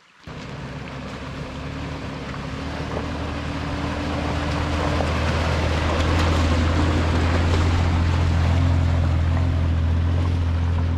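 SUV engine running steadily as it drives along a wet, rocky dirt track, with tyre and water noise over a low hum. It starts suddenly, grows louder over the first several seconds, then holds steady.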